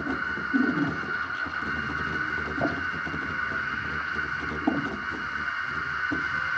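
Experimental electronic soundscape: a steady high drone over irregular low rumbles and short swooping swells.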